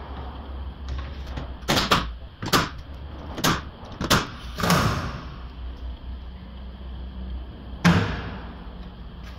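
Sharp metal knocks from tools at work on a car's front suspension: five in quick succession between about two and five seconds in, and one loud knock near the end, over a steady low hum.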